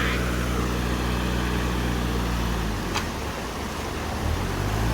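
4x4 off-road race rig's engine idling steadily. Its note drops away a little before the middle and comes back about four seconds in, with a single sharp click about three seconds in.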